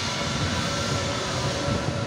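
Airbus A320neo airliner taxiing past, its turbofan engines running steadily at taxi power: an even jet rush with a held whine and a low rumble.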